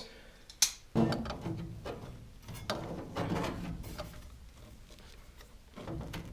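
Metal pliers scraping and clicking against the furnace's sheet-metal blower wheel while feathers of a dead bird jammed in it are pulled out. There is a sharp click about half a second in, then rattling and scratching that fade out near the end.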